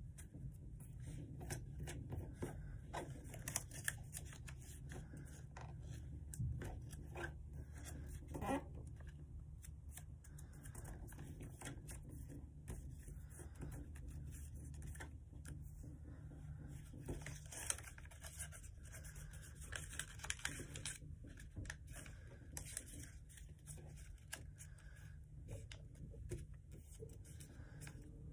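Notebook paper being folded and creased by hand: faint, irregular rustles and small crackles, with a steady low hum underneath.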